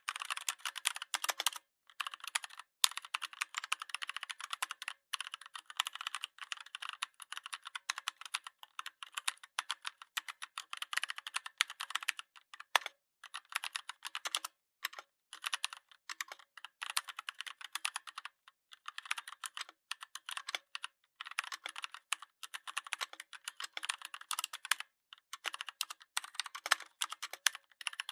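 Rapid, dense clicking like keyboard typing, in runs broken by short pauses.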